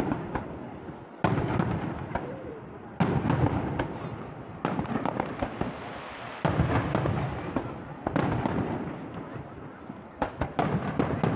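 Aerial firework shells bursting in a display: six heavy bangs about one every one and a half to two seconds, each dying away over a second or so, with smaller sharp pops and crackles in between.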